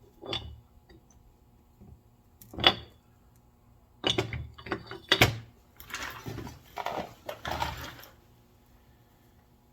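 Metal parts of a Trans Am steering gear box clinking and knocking as a part is worked into place: a few separate knocks, then a couple of seconds of rattling and scraping.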